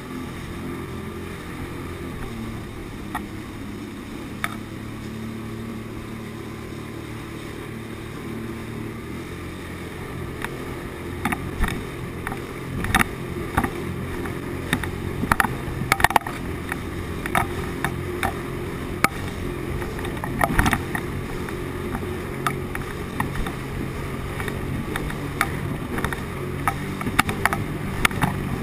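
Sea-Doo personal watercraft running steadily at speed, its engine a constant low drone. From about halfway, frequent sharp slaps of water against the hull as it rides over the chop.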